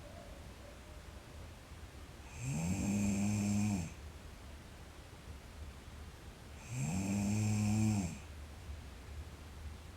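A sleeping girl snoring: two long, pitched snores about four seconds apart, each rising in pitch as it starts and dropping away as it ends, with quieter breathing between them.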